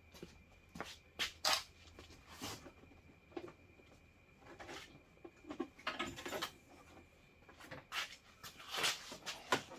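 Irregular clicks, taps and rustles of hands handling wires and small tools, loudest about a second and a half in and again near the end, over a faint steady hum.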